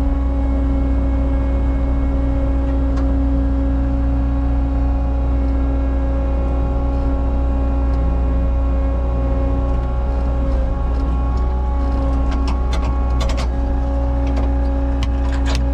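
A Cat 279 skid steer's diesel engine runs steadily under load, a deep rumble with a constant hum. A few sharp clanks come near the end.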